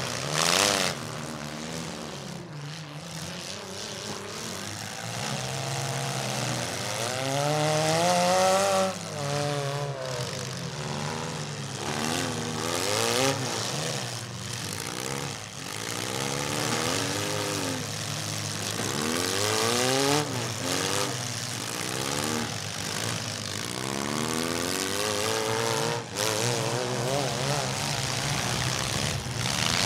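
Engines of several compact demolition derby cars revving up and down over and over as they ram each other, with a few sharp crashes of cars colliding.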